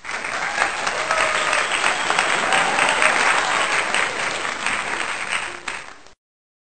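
Applause from a crowd, a dense clatter of many hands clapping with a few voices mixed in. It cuts off abruptly about six seconds in.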